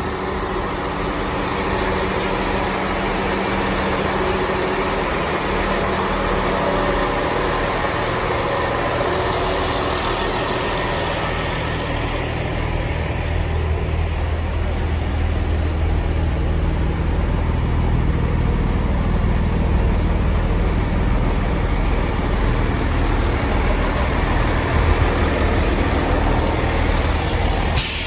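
Class 158 diesel multiple unit's underfloor diesel engines running at the platform, the sound growing deeper and louder from about halfway through as the train pulls away. A brief sharp knock near the end.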